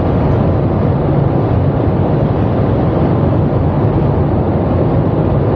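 Steady driving noise heard inside a motorhome's cab at motorway speed: a constant low drone with road rumble, unchanging throughout.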